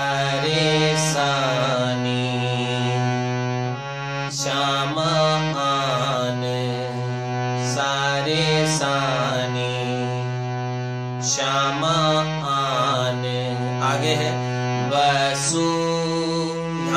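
Harmonium playing a slow devotional bhajan melody in held notes over a steady low note, with a man's voice singing along in places.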